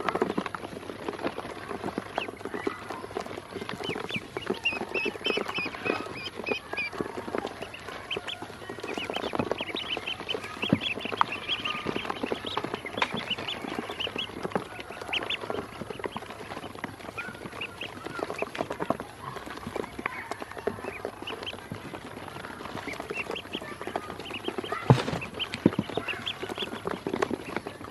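A brood of ducklings peeping in runs of short high chirps while they peck feed from a plastic basin, their bills tapping on the plastic in many small clicks. There is one louder knock near the end.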